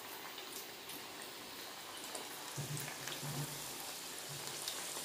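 Faint, steady sizzle of corn vadas deep-frying in hot oil in an iron kadai.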